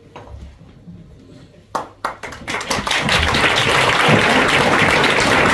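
Audience applause that starts about two seconds in with a few separate claps and quickly swells into full, steady clapping.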